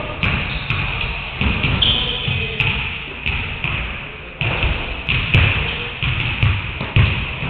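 Basketballs bouncing on a hardwood gym floor: irregular thuds, a few of them sharper knocks, echoing in a large hall.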